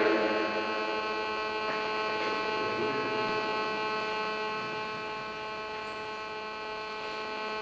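Steady electrical mains hum in the sound system: a buzz made of many evenly spaced steady tones, easing off slightly after the middle.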